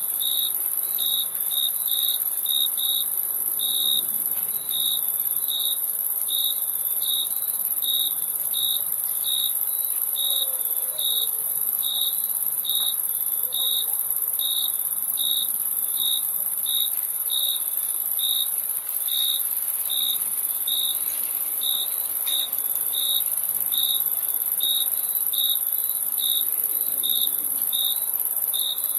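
Crickets chirping: short regular chirps about twice a second over a steady, high-pitched continuous trill.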